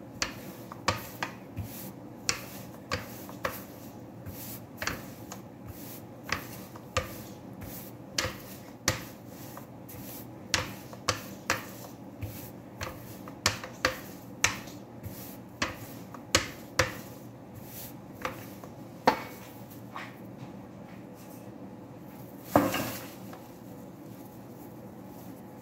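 Plastic rolling pin working pizza dough, giving a sharp click about every three-quarters of a second on each back-and-forth stroke. The clicking stops about three-quarters of the way through, and near the end comes one louder clatter as a baking pan is set on the table.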